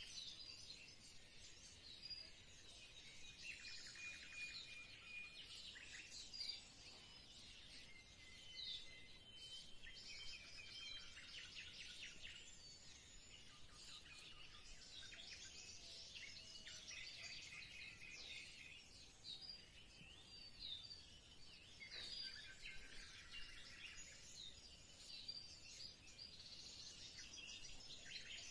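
Faint, continuous chorus of small birds chirping and twittering, many short high calls overlapping.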